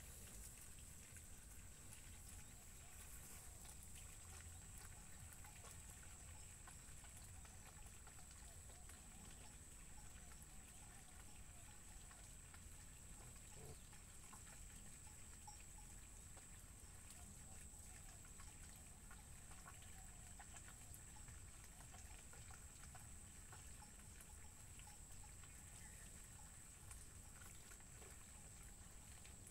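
Near silence: faint steady background noise with a thin, high, steady tone running throughout.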